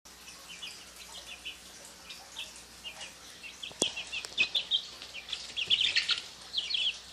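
Young chickens peeping, many short high chirps overlapping throughout, growing louder and busier about halfway through. A single sharp knock just before the middle.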